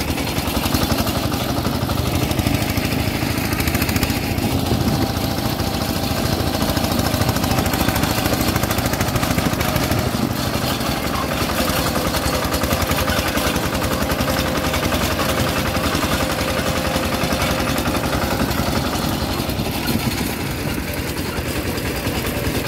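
Single-cylinder diesel engine of a two-wheel hand tractor running steadily under way, with a fast, even beat.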